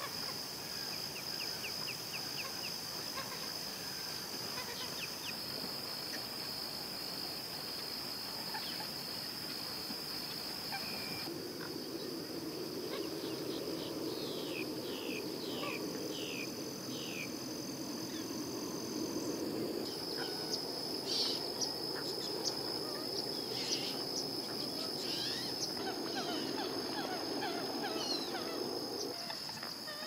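Outdoor nature ambience: a steady high-pitched insect drone with scattered bird chirps and calls, including a run of quick falling call notes midway. The background changes abruptly a few times.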